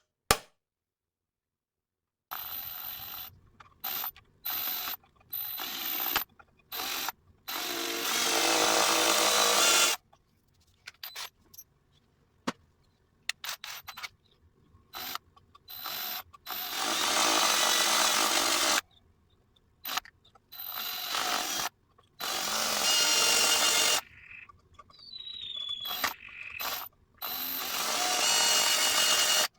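A power tool run in repeated short bursts, some brief and some lasting two to three seconds, each starting and stopping abruptly. A single sharp click comes just at the start.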